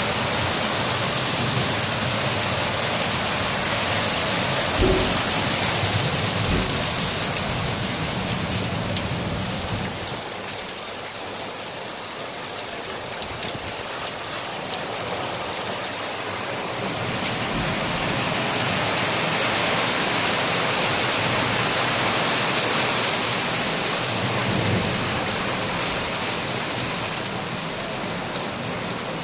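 Heavy downpour of rain pouring onto a street and pavement: a dense, steady hiss that eases somewhat partway through and then builds again, with a brief low thump about five seconds in.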